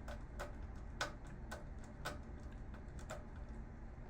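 Faint, sharp clicks, about two a second and uneven in strength, from a screwdriver turning a screw out of an LCD monitor's plastic casing.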